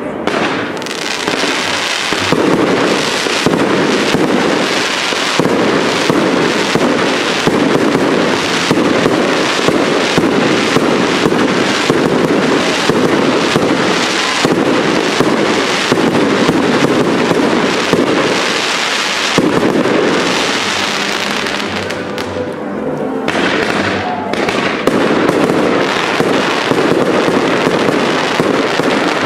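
A fireworks cake barrage firing continuously: a rapid, dense run of launch thumps and aerial bursts with crackle. It eases briefly about three-quarters of the way through, then picks up again.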